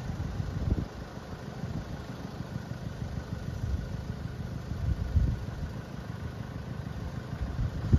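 Wind buffeting the microphone: an uneven low rumble that swells and drops in gusts, louder about five seconds in and again near the end.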